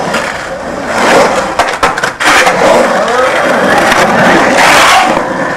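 Skateboard wheels rolling loudly over the concrete of an empty pool, with a few sharp clacks of the board about two seconds in.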